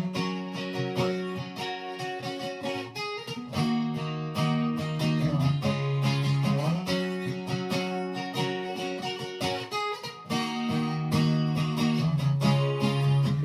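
Instrumental break of a song: guitar strummed and picked, with no singing.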